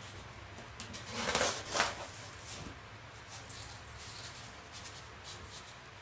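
Salt being scooped and poured from a plastic container over mullet pieces in a plastic tub: a grainy hiss that swells twice about a second in, followed by fainter rustling and light plastic knocks.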